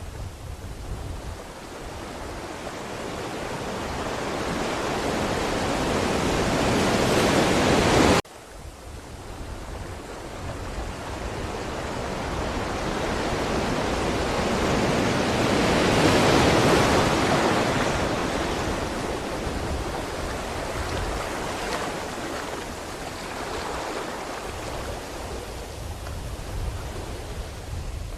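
Ocean waves surging and washing on a shore. The surf swells up to about 8 seconds in and cuts off abruptly, then builds into another long swell that peaks past the middle and slowly eases.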